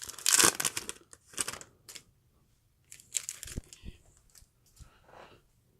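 Glossy trading cards handled by hand, sliding against each other in short bursts of rustling, with a few soft knocks near the middle and later.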